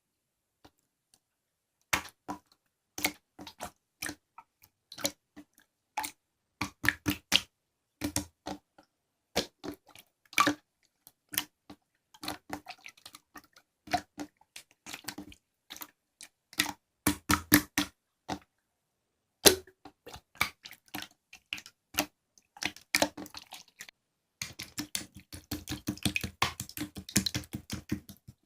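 Irregular sharp clicks and taps, one or two a second at first, turning into a rapid run of clicks near the end.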